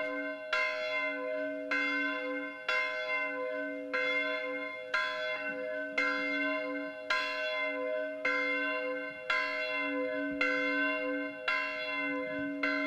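A single church bell tolling steadily, about three strikes every two seconds, each strike ringing on into the next.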